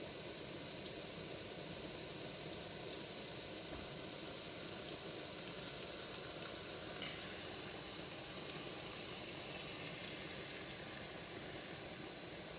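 Steady hiss of an MSR PocketRocket canister stove burning under a pot of butter as it melts.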